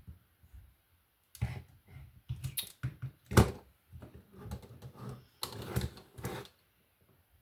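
Plastic Lego bricks being handled and pressed together: a quick run of small clicks and rattles, with one louder click about halfway through.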